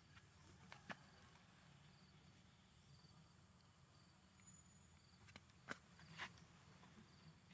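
Near silence with a faint, high insect chirp repeating about once a second, and a few soft clicks: one about a second in and a small cluster between five and six seconds in.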